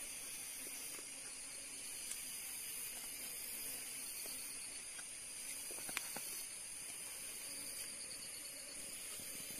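Steady high-pitched drone of forest insects, a chorus of several layered tones, with a few faint clicks about six seconds in.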